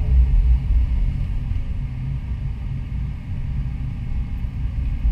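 Doosan DX225 excavator's diesel engine running with a steady low rumble, heard from inside the cab while the boom swings and the bucket lowers onto the soil.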